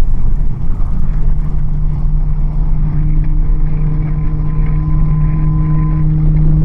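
Heavy vehicle engine sound effect: a loud low rumble, with a steady drone settling in about a second in and fainter higher hums joining it a couple of seconds later.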